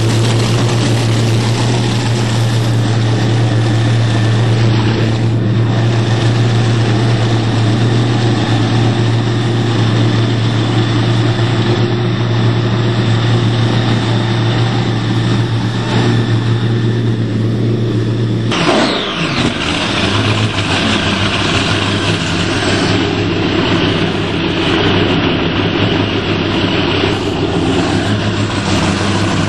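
Outerlimits performance powerboat's inboard engines idling steadily through their stern exhausts. About two-thirds of the way through the pitch dips and wavers briefly, then settles back to a steady idle.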